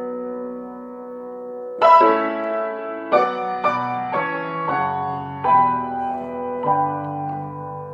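Slow piano music: a held chord, then a new chord struck about every second or so, each ringing and fading.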